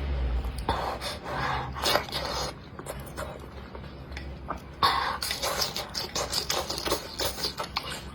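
Close-miked eating sounds: a person chewing and breathing through the nose, with irregular scrapes and short clicks.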